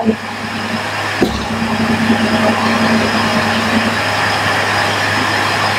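A motor running steadily, with an even whirring noise and a low hum.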